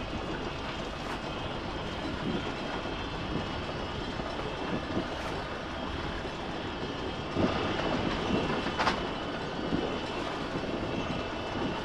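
Inboard diesel engine of a Jeanneau Sun Odyssey 33i sailing yacht running steadily as the boat motors off its berth, with a few sharp clicks or clanks, two of them about 7.5 and 9 seconds in.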